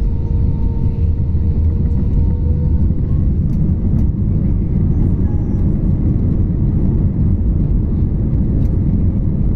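Airbus A320 cabin noise: a loud, steady low rumble of the jet engines and airframe heard from inside the cabin. A faint steady hum fades out in the first few seconds, and there are a few light clicks.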